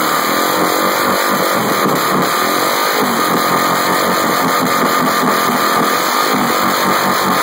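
Touring motorcycle doing a burnout on a plywood board: the engine is held at high revs, loud and steady, while the rear tire spins and smokes.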